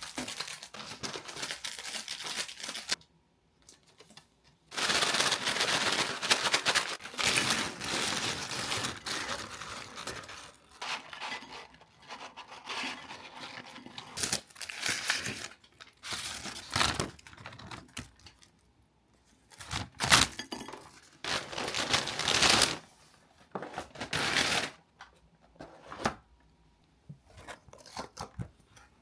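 Paper and plastic food-delivery packaging being torn open and crinkled by hand in irregular bursts, with a sharp click about twenty seconds in.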